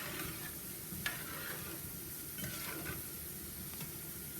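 Seasonings sizzling in oil in a cooking pot while being stirred with a spoon, which clicks and scrapes against the pot a few times.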